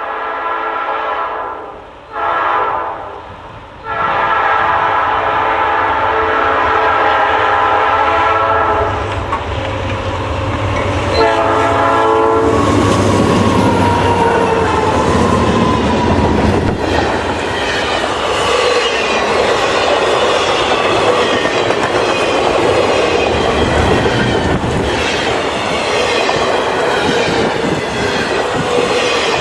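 Diesel freight locomotive's air horn sounding several blasts, the longest about four seconds, then a short final blast that drops in pitch as the locomotive goes by. The train then rumbles past with wheels clacking over the rail joints.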